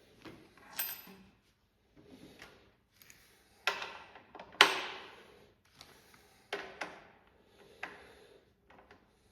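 Irregular metal clinks, taps and scrapes as a bolt is worked into line with the bushing in a snow bike ski's spindle mount. The loudest knock comes about four and a half seconds in.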